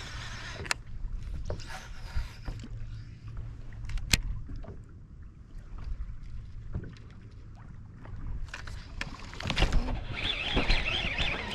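Choppy water lapping and splashing against a fishing boat's hull, with a steady low rumble, two sharp clicks, and a louder stretch of hiss near the end.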